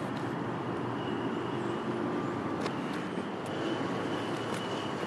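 A hi-rail pickup truck running on the rails toward the listener: a steady engine hum and rolling-wheel noise, with a few faint clicks and a faint high squeal that comes and goes.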